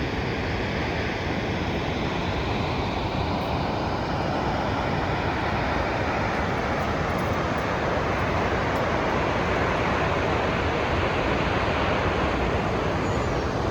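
Steady roar of Shoshone Falls, a large waterfall on the Snake River: a dense, even rushing noise that grows slightly louder in the second half.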